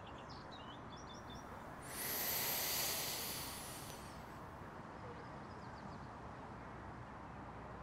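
Quiet outdoor ambience with faint birds chirping. About two seconds in, a soft swell of rushing noise rises, holds for about two seconds and fades.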